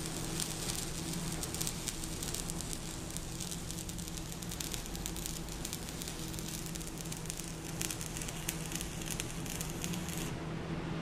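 Stick-welding arc of a Sidewinder self-welding electrode crackling and sizzling steadily over a plate, then cutting off near the end as the arc is broken. A steady low hum runs beneath it.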